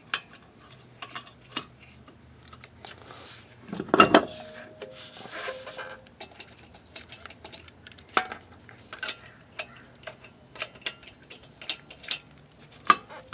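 Chrome lug nuts clinking together in a gloved hand and ticking against the wheel studs as they are threaded on by hand. A louder metallic clank with a brief ring comes about four seconds in.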